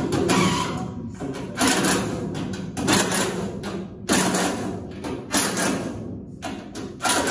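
A small power tool run in short bursts, about one burst every second or so, during body work on sheet metal.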